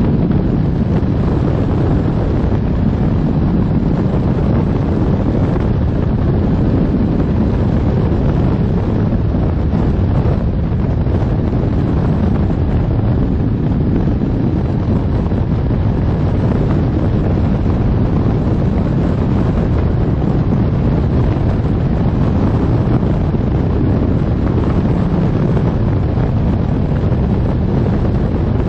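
Loud, steady wind noise from the rushing airflow of a hang glider in flight buffeting the microphone.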